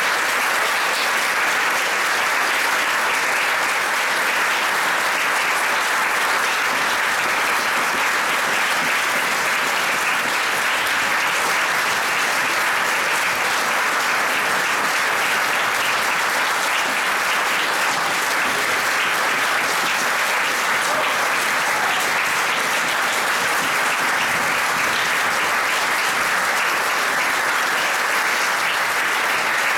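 An audience applauding, a steady, unbroken clapping that keeps the same level throughout.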